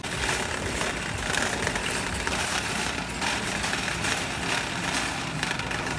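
Wire supermarket shopping cart rolling over a tiled floor, its wheels and metal basket rattling steadily.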